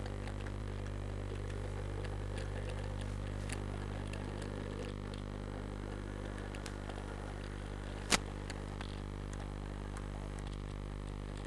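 Steady low electrical hum, with faint scattered clicks and one sharp click about eight seconds in.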